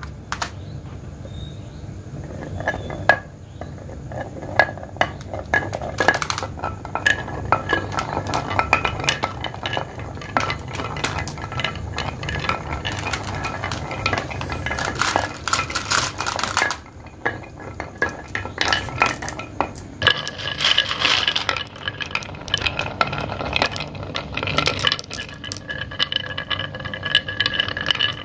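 Glass marbles rolling down carved wooden wavy-groove tracks, rattling continuously along the wood with many sharp glassy clinks as they knock into one another.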